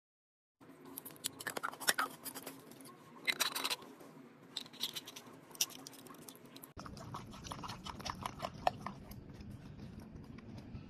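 Hard plastic parts of a pet water bottle handled and clicked, with scattered clicks and rattles. About seven seconds in, a dog lapping water from the bottle's trough: a quick, steady run of small clicks.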